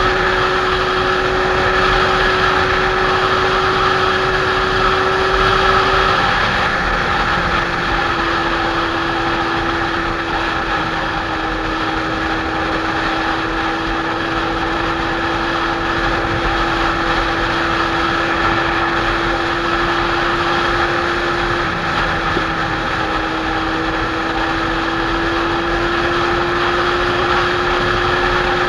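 Kawasaki Z800's inline-four engine running steadily while the motorcycle cruises, over a steady rush of wind. The engine note drops slightly about six seconds in and creeps back up near the end.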